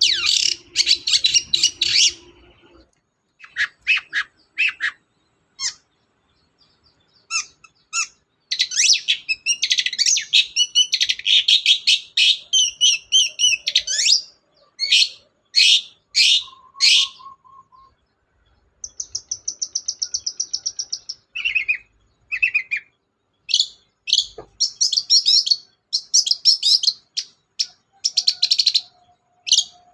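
Long-tailed shrike singing in fast bursts of high, chattering notes with short pauses between phrases, including a rapid, even trill about two-thirds in. The song is the full, mimicry-packed song kept birds are bred and trained for.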